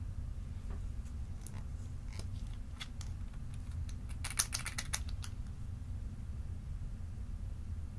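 Small sharp clicks and ticks from a nail polish bottle being handled and its cap twisted off, with a quick run of clicks about four seconds in as the cap unscrews.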